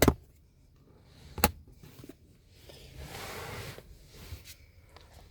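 Car interior trim being handled: two sharp clicks about a second and a half apart, then a brief rustling rub.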